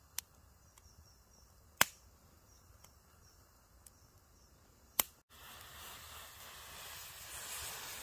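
Wood campfire crackling, with a few sharp pops from the burning wood, the loudest about two and five seconds in. After a brief break, a steady hiss takes over and grows louder.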